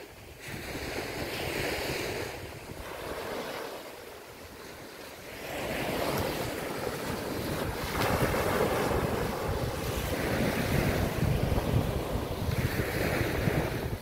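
Small waves breaking and washing up a sandy shore, swelling and fading several times, with wind buffeting the microphone. The wind rumble grows heavier about halfway through.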